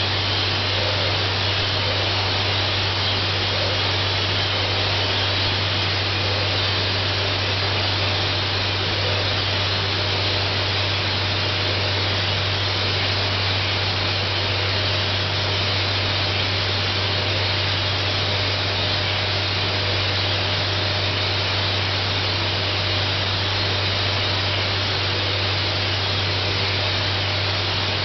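Thermal spray gun running continuously, spraying a coating onto the bore of a vacuum pump casing to resurface it: a steady, unbroken hiss with a low steady hum underneath.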